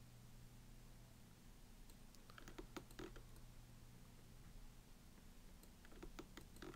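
Near silence with a steady low hum, broken by two short runs of quiet clicks from a computer mouse and keyboard, about two and a half seconds in and again near the end.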